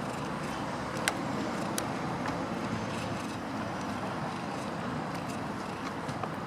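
Steady outdoor background noise, like passing traffic, with a few sharp clicks in the first two seconds.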